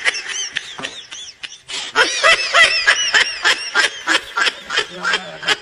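Someone laughing hard in a rapid run of short, high-pitched "ha" bursts, louder from about two seconds in.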